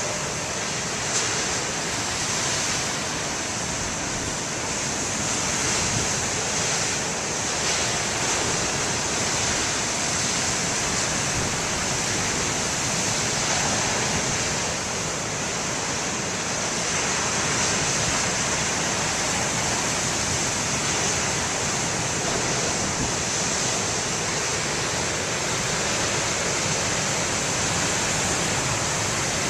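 Big ocean waves breaking and washing in: a steady wash of surf noise that swells and eases slowly in loudness.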